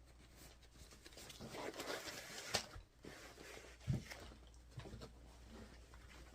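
Quiet rustling and handling of kit packaging being unpacked, with a sharp tap about two and a half seconds in and a low thump about four seconds in.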